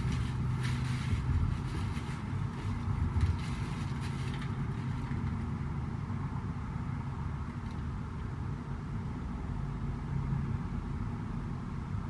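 A steady low rumble with a faint hum, with light rustling and handling noises during the first few seconds.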